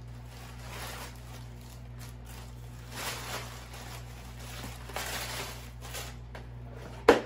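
Packaged diamond painting kits being handled and sorted, rustling softly in swells every couple of seconds. About seven seconds in, a single loud bang as a Diamond Art Club kit package lands.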